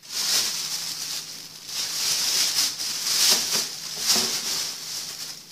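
Thin plastic bag crinkling and rustling as hands open and handle it, with a few sharper crackles.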